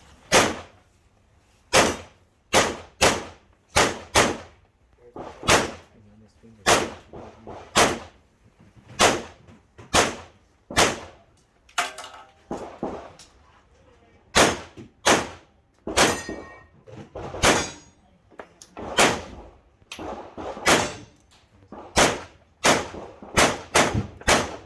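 Dozens of pistol shots from a Tanfoglio, fired in quick pairs and strings with short pauses between, as an IPSC stage is shot.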